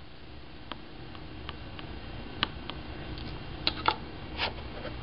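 Pointed blade tapping and scraping on the glass screen of an iPod nano in a scratch test: scattered light clicks and a couple of short scrapes, the loudest near the end, over a steady low hum.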